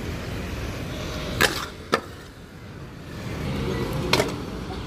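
Stunt scooter knocking against concrete, with two sharp knocks about one and a half and two seconds in and a third near the end as the deck and wheels hit the ledge, over the low rumble of the wheels rolling on pavement.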